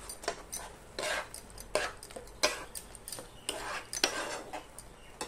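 Flat metal spatula scraping and stirring mashed banana in a frying pan: a series of irregular scrapes and clinks of metal on the pan, roughly one every half second to second.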